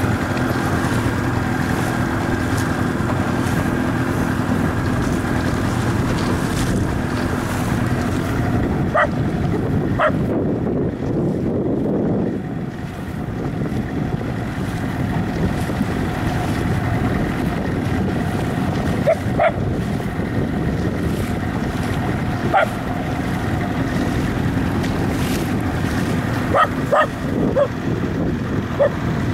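A motorboat's engine running steadily under wind and the splash of choppy water, while a dog on board gives short yips, twice about nine and ten seconds in and then a few more times, clustered near the end.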